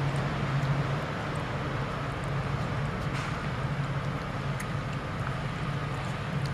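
A steady low hum of background noise, with a few faint soft ticks as a cat chews and licks wet cat food.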